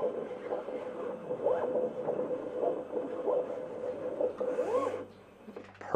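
Vevor 870 34-inch vinyl plotter cutting a design: its motors whine on a steady tone with quick rising and falling pitch changes as the blade carriage and feed rollers move the vinyl back and forth. The cutting stops about five seconds in.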